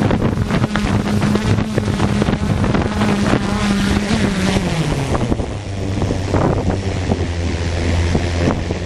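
ZionEX460 multirotor drone's propellers buzzing steadily, then falling in pitch about halfway through as the motors throttle down, with strong wind buffeting the microphone.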